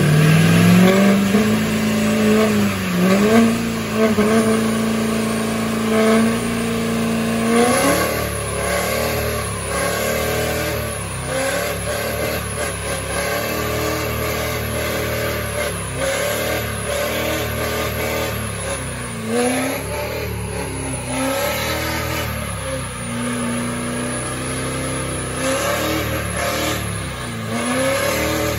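Diesel Chevrolet Silverado pickup doing a burnout: the engine revs up and holds high revs, then from about eight seconds in surges up and down again and again, roughly once a second, while the rear tyres spin in a cloud of smoke.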